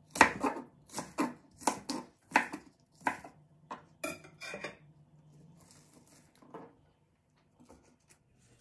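Kitchen knife chopping bok choy on a wooden cutting board, about a dozen crisp chops at two to three a second. Over the last few seconds come only faint, soft handling sounds as the cut pieces are gathered up.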